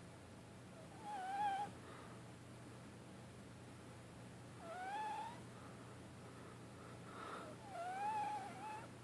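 Ragdoll kitten sleep-talking: three short, high, wavering calls a few seconds apart, each under a second long, the last rising and then wobbling.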